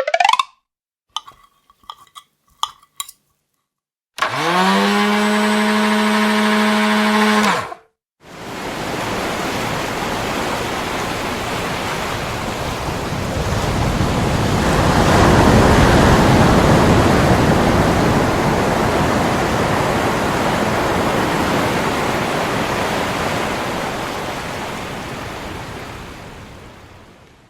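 Computer-generated sound effect: a few short blips, then a low buzzing tone that slides down as it starts and holds for about three seconds, then a long rushing hiss that swells to a peak and slowly fades away.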